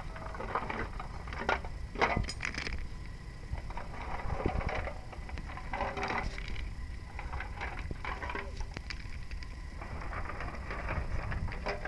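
Irregular clatter of clam shells knocking together, with splashing, as clams are handled by hand in a metal basin of water and dropped into a plastic basket.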